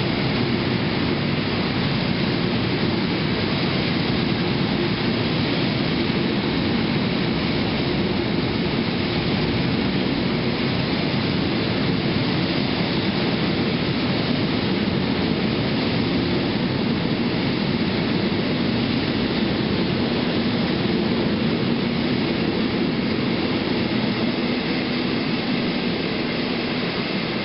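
Freight train of hopper wagons rolling past at speed: a steady noise of steel wheels on the rails, easing slightly near the end as the tail of the train goes by.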